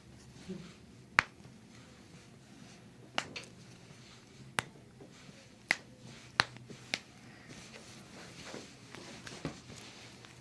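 Toe and ankle joints popping under a chiropractor's manipulation: sharp single cracks, about six in the first seven seconds, then a few fainter clicks.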